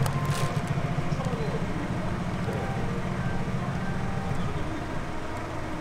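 Steady low rumble of street traffic, easing off a little near the end, with a few short clicks near the start.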